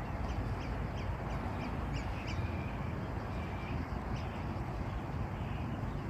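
Crimson rosellas calling: a quick run of short high chirps over the first couple of seconds, then a longer held whistled note and one more chirp, over a steady low rumble.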